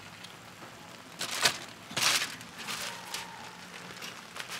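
Aluminium foil crinkling and rustling as a spatula and fork lift a roast fish out of its foil packet, with two short louder crinkles about one and two seconds in.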